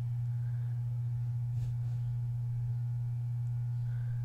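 A steady low hum, one unchanging low tone. About one and a half seconds in there is a faint tick.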